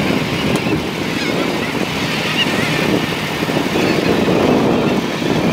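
Wind buffeting the microphone in a steady, uneven rumble, with a few faint bird calls over it.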